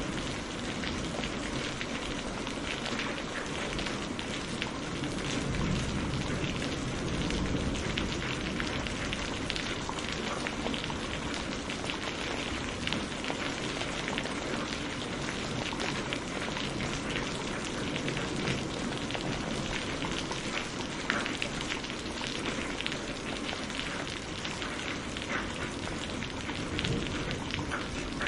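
Steady rainfall, drops pattering on a surface in a constant even hiss with many small individual drop ticks.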